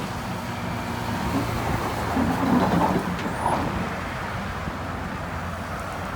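Heavy diesel earthmoving machinery running steadily, with a louder stretch about two to three seconds in.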